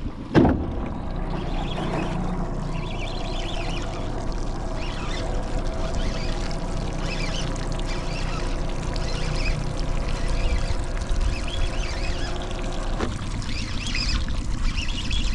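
Small fishing boat on windy, choppy water: a sharp knock about half a second in, then a steady motor hum over wind rumble and water splashing and lapping against the hull. The hum stops with a click near the end.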